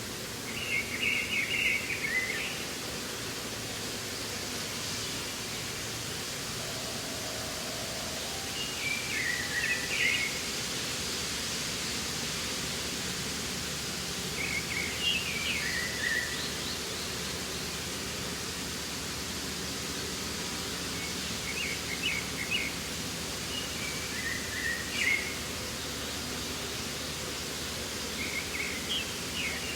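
Layered spring outdoor ambience: a steady, even noise bed with a songbird singing short chirping phrases, one every five to seven seconds.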